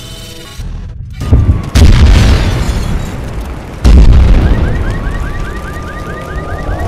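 Explosions as sound effects: two sudden blasts a little over a second in and a third about four seconds in, each with a deep rumble that fades away. In the last couple of seconds a fast warbling, alarm-like tone sounds over the fading rumble.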